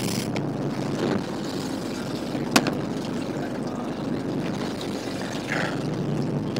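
A fishing boat's engine running steadily under wind and sea noise, with one sharp click about two and a half seconds in.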